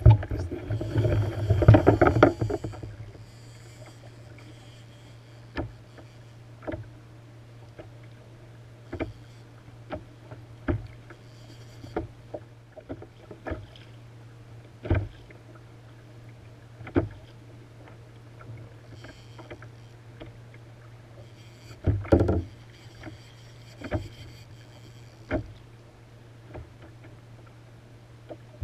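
Sea water slapping and splashing against a plastic kayak hull: short separate slaps every second or two over a low steady hum, with louder stretches of splashing in the first few seconds and again about 22 seconds in.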